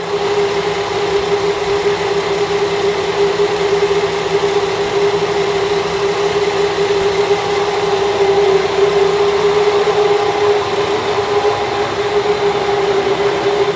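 Diesel railcar engine running steadily with an even hum, heard from inside the passenger cabin.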